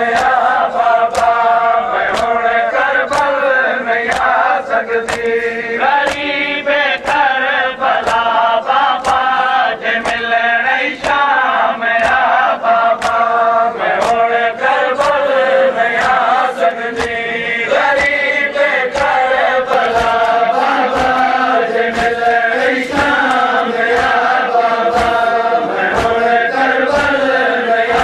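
Men chanting a Seraiki noha, a Shia mourning lament, in a steady melody, with rhythmic matam (hand strikes on the chest by the mourners) keeping a steady beat of about two strikes a second.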